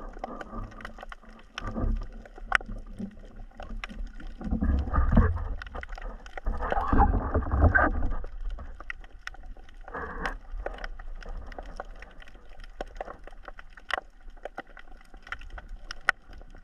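Underwater sound through an action camera's housing: muffled sloshing and rumbling of moving water that swells several times, with scattered sharp clicks throughout.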